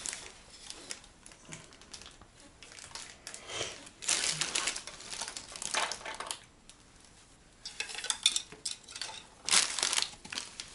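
Rustling, crinkling and light clinking of small objects being handled, in several irregular bursts with quieter gaps between.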